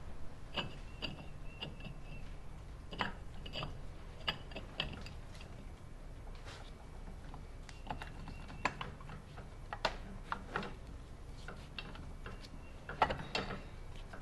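Steel automatic-transmission parts (the 4L80E output shaft, bearing and planetary drum) clinking and clicking as they are fitted back together by hand: scattered light metal-on-metal clicks, some with a brief high ringing.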